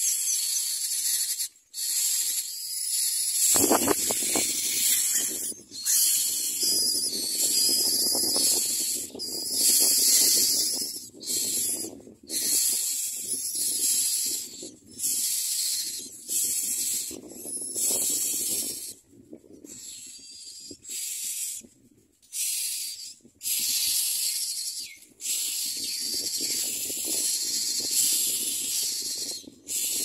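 Nestlings in a common myna nest begging with harsh, hissing calls in repeated bursts about a second apart, while being fed. A lower rustling joins in about four seconds in.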